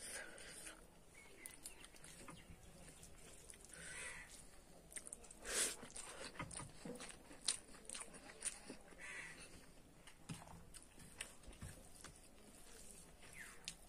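Faint sounds of eating by hand from a plate: chewing, fingers working the food and small clicks and smacks, with a louder smack a little before the middle. Two short animal calls, about five seconds apart, come in behind.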